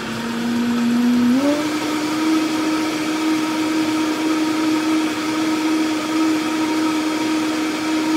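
Vitamix blender running loud, blending liquid egg, cottage cheese and cheese mixture. The motor's steady hum steps up in pitch about a second and a half in, then holds.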